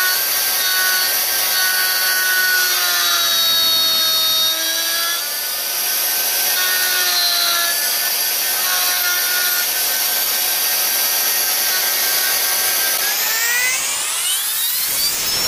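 Electric router with a spiral bit cutting into wood: a steady high motor whine mixed with the rasp of the cut. The pitch sags a little as the bit bites in, then climbs steeply near the end.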